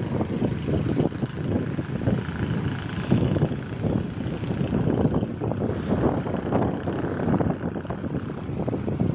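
Motorbike running steadily along a road, with wind buffeting the phone's microphone in a rough, fluttering rumble.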